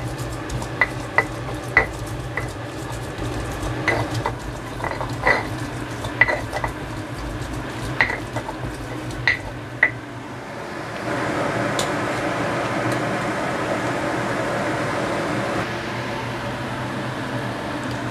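Stone pestle grinding chillies and shrimp paste in a stone mortar (ulekan and cobek), with sharp stone-on-stone knocks about once a second. About eleven seconds in the knocking stops and a steady hiss takes over.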